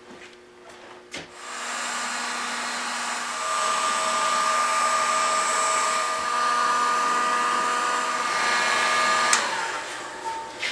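Electric heat gun running: a steady rush of air with a fan whine, switched on about a second in and cut off suddenly near the end. It is heating a glued table-top joint to soften the old glue so the joint comes apart.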